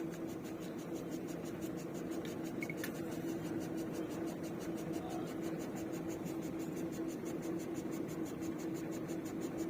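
Borewell drilling rig running steadily: a steady hum with a fast, even ticking over it.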